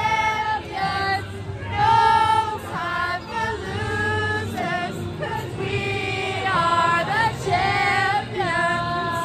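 A group of girls singing together at the top of their voices, holding and sliding between long sung notes.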